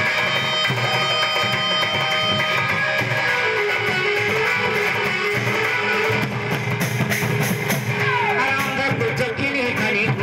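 Live folk dance music: a two-headed barrel drum beating a rhythm under a sustained, string-like melody line, with a flurry of sharp percussive strokes about seven seconds in.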